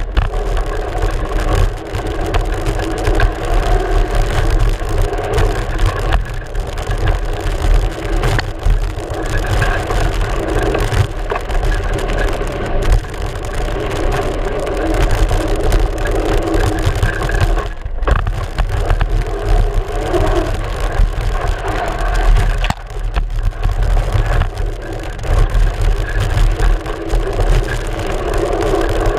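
Mountain bike's front tyre rolling fast over a dirt trail, picked up by a GoPro mounted on the fork right beside it: a steady loud rumble broken by frequent knocks and rattles over bumps.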